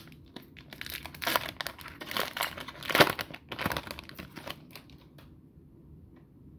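Foil wrapper of a hockey card pack being torn open and crinkled, loudest about three seconds in; the crinkling dies away a little after five seconds as the cards come out.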